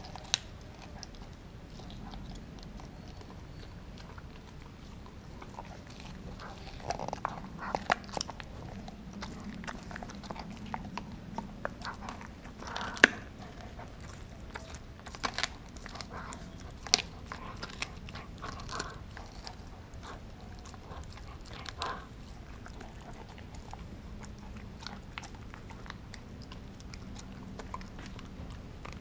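A dog gnawing and chewing a frozen raw turkey steak, with irregular sharp crunches and clicks of teeth on the meat, the loudest about halfway through.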